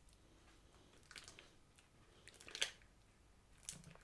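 Sticky slime being kneaded by hand: a few faint, short squelches, the clearest about two and a half seconds in.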